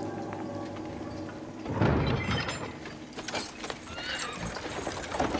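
A sustained music score fades out, then a loud, sudden low whoosh-like hit comes in about two seconds in, followed by a busy outdoor soundtrack ambience with scattered clicks and a short pitched animal call near the middle.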